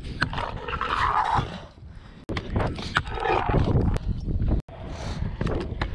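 Stunt scooter wheels rolling over concrete and the scooter grinding along a concrete ledge, with scraping and clacks over a heavy rumble of wind on the microphone. The sound cuts out briefly twice.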